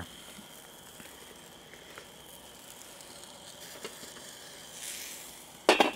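Chicken drumsticks searing over hot charcoal on a small kettle grill, giving a faint, steady sizzle with a few light clicks. Near the end there is a brief loud noise.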